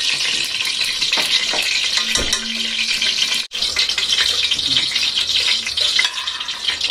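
Ghee sizzling and crackling in a hot stockpot, a steady frying hiss with fine pops throughout. It cuts out briefly about halfway through.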